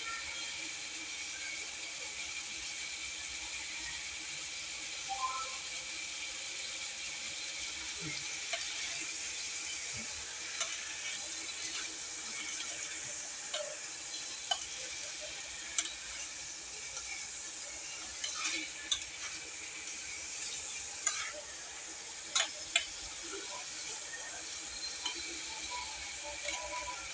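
Chicken adobo sizzling steadily in a stainless steel pan. From about ten seconds in, a metal spoon stirs the pieces, clicking and knocking against the pan.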